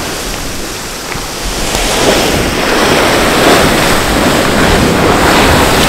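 Geothermal hot spring boiling hard, a loud, steady rush of bubbling and splashing water that swells about two seconds in.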